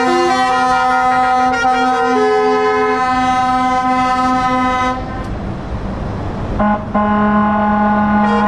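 Musical truck horn playing a tune: a run of changing horn notes over a held low note. It breaks off about five seconds in, leaving road and engine noise from the passing traffic, and starts up again about a second and a half later.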